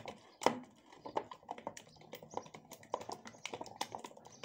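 Egg being beaten with a blue silicone balloon whisk in a plastic bowl: a quick, irregular run of light clicking taps as the whisk strikes the bowl, with one louder tap about half a second in.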